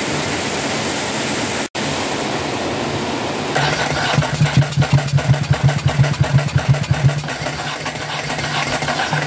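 Ducati 749S's L-twin engine being cranked on the electric starter. It starts about three and a half seconds in, turns over with a rhythmic chug about four times a second for some five seconds, and does not catch. The owner takes the non-start to be flooding with petrol. A steady hiss comes before the cranking.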